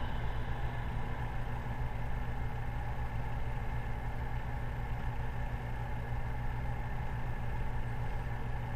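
A steady low mechanical hum with no music.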